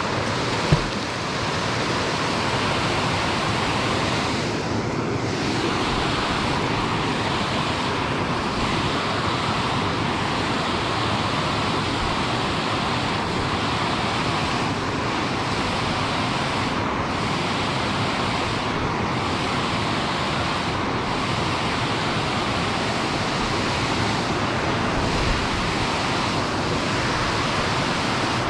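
Steady rush of water pouring over a small dam spillway, with a single brief thump about a second in.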